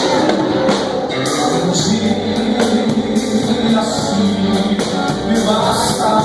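Live band music with a steady drum and cymbal beat, sustained chords and a singing voice.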